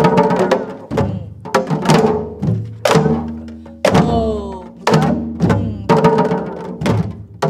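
Janggu (Korean hourglass drum) played in the gutgeori rhythm: the stick side cracks and the deep side booms, with a strong stroke about once a second and lighter strokes in between, each ringing on briefly.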